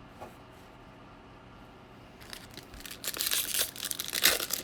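Foil wrapper of a 2021 Bowman baseball card pack crinkling and tearing as it is opened, starting about two seconds in and growing louder.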